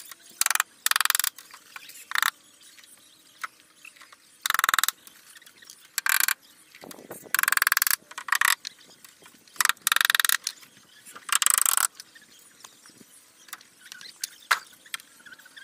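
Handheld power drill run in short bursts of under a second, about a dozen times, as side planks are fastened to a wooden boat hull. Light clicks and taps come between the bursts.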